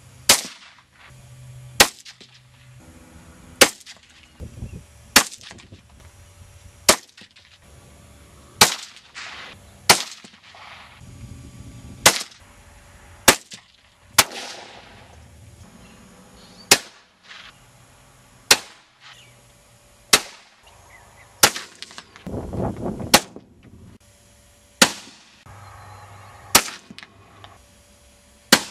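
.17 HMR rifle shots from a Ruger 77/17 bolt-action: a sharp crack every one to two seconds, about seventeen in all, each with a short ringing tail.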